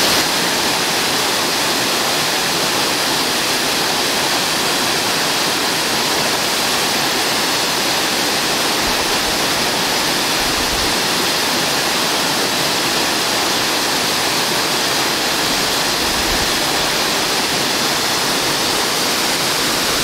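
A loud, steady rush of water from a waterfall with about 100 metres of free fall, heard close to where the water lands.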